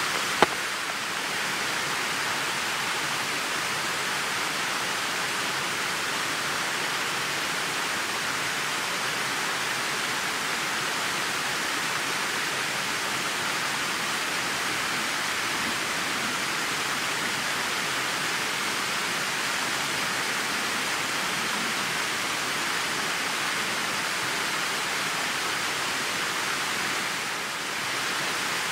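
Steady rushing of a river cascade pouring over stepped rock ledges, an even hiss of falling water, with one brief knock just after the start.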